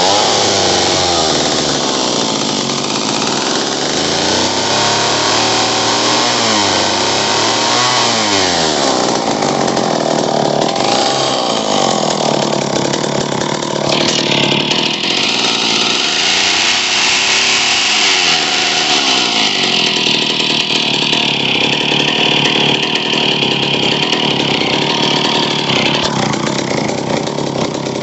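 Vintage McCulloch 35 two-stroke chainsaw running just after starting, its engine speed rising and falling a few times as the throttle is worked. The owner says the carburettor needs work and it doesn't idle right.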